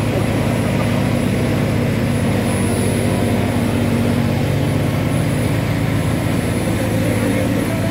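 An engine running steadily at a constant speed, a low drone that does not change, typical of the portable engine-driven rescue equipment (generator or power pack) used for cutting through concrete.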